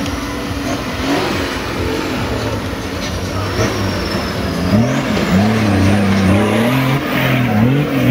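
Nissan Patrol off-roader's engine revving hard on a dirt climb, its pitch holding and then rising and falling repeatedly in the second half, with the wheels spinning in loose dirt.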